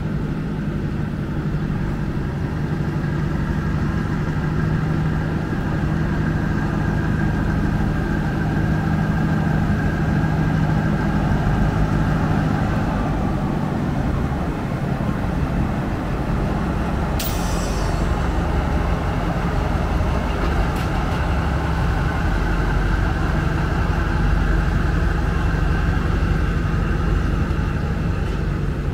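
Diesel-electric locomotive of the State Railway of Thailand running as it hauls a passenger train slowly past, a steady engine hum with the rumble of the coaches rolling on the rails. A single sharp clank about two-thirds of the way through.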